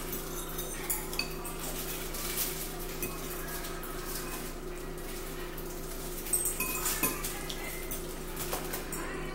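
A metal fork clinks and scrapes against a ceramic bowl of spaghetti and meatballs in scattered light taps, with a cluster of sharper clinks about six to seven seconds in, over a steady low hum.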